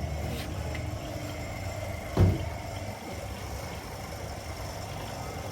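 Car engine idling steadily, with one sharp knock about two seconds in.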